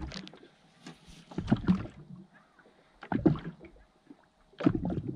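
Water slapping against the hull of a small fishing boat, coming in four surges about a second and a half apart.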